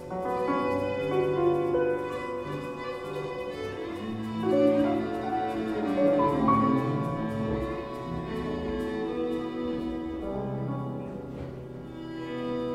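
Live improvised instrumental music: many sustained, overlapping pitched tones, some sliding in pitch, with bowed-string-like and keyboard sounds.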